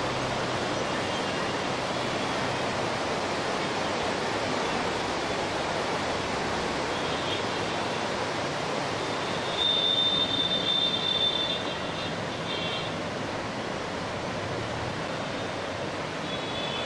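Rushing floodwater of a swollen river, a steady rush of water. A little over halfway through, a high squealing tone rises above it for about two seconds.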